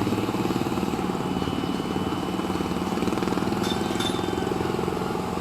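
A small engine running steadily nearby, with a fast even pulse. Two faint short clicks a little past the middle.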